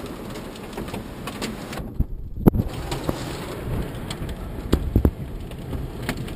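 Rain beating on a car, heard from inside the cabin over the car's steady road and engine noise, with scattered drop ticks and a few dull thumps about two and five seconds in.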